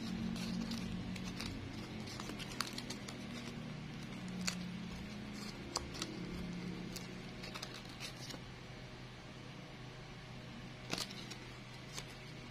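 Soft, scattered clicks and crinkles of ironed plastic-bag flower petals being handled and pressed together by hand, over a steady low hum.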